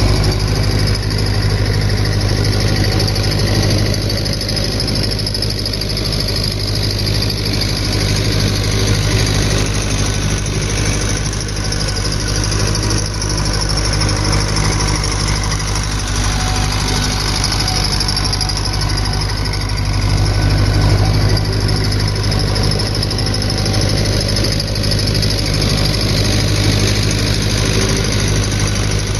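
1964 David Brown tractor engine running steadily as it pulls a harrow across a paddock.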